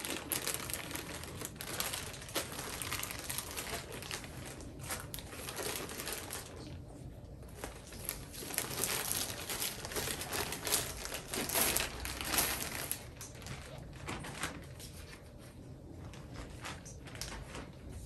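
Clear plastic zip bag crinkling as it is opened, then a folded frosted PVC inflatable being pulled out and handled, the vinyl rustling and crackling. The crinkling is irregular, with brief pauses.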